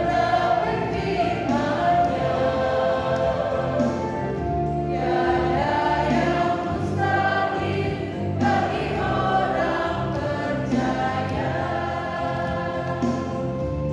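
Mixed church choir of women and men singing a hymn in Indonesian, in sustained, steady phrases.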